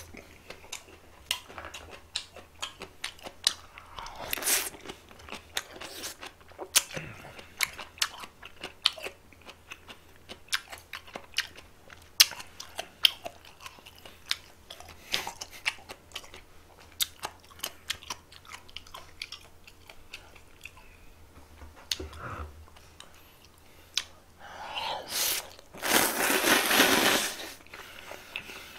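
A person chewing and biting food close to the microphone: crisp crunches and wet mouth clicks, many short sharp snaps in an irregular stream. Near the end comes a louder, noisy stretch of about two seconds.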